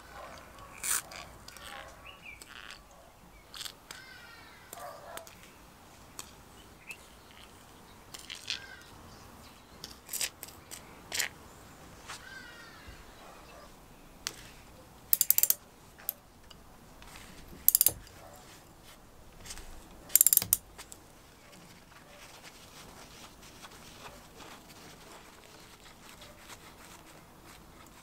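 Rusty vintage benchtop lever metal shear being handled during disassembly: scattered metallic clicks and knocks from its parts, with a few sharp, louder clanks about halfway through.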